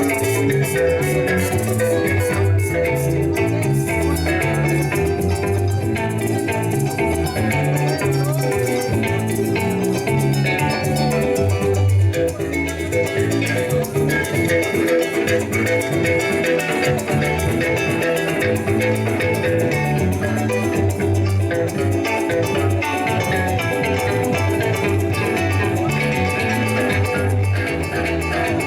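Instrumental Venezuelan música llanera played on cuatro, harp and maracas: strummed and plucked strings over a bass line, with the maracas shaking a steady beat.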